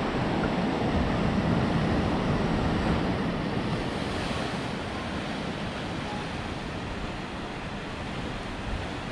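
Sea waves washing over a rocky shoreline: a steady rush of surf, a little louder in the first few seconds and easing slightly after.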